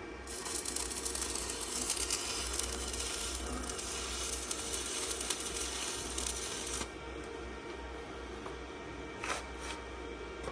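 A power tool working steel pipe, a harsh crackling hiss that runs for about seven seconds and cuts off abruptly, followed by two short metallic clicks.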